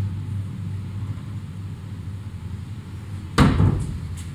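A sharp knock about three and a half seconds in, with a smaller one just after, over a low steady hum.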